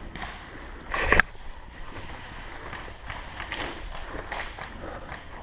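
Rustling and scuffing of a player moving on foot, with a louder brushing noise about a second in, then scattered faint ticks.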